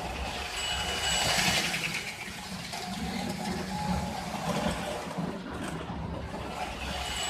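American Flyer 312 model steam locomotive running on the track with the transformer at full power: its electric motor and wheels making a steady mechanical whir.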